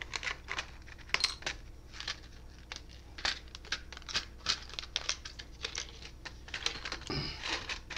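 Irregular light clicks, taps and short scrapes of small hard objects being handled on a workbench, several a second.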